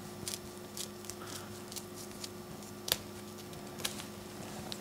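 Dried, pounded beef sinew being torn apart by hand into fibres: faint irregular crackling ticks as the strands separate, the sharpest about three seconds in.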